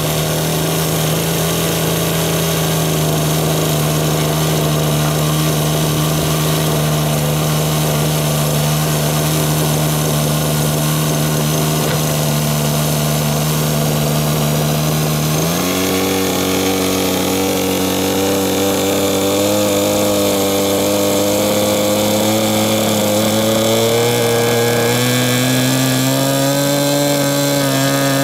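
A 10 cc single-cylinder glow (nitro) model-aircraft engine turning its propeller, running steadily at low throttle just after starting. About halfway through its speed steps up, and near the end it rises further in small steps as the throttle is opened.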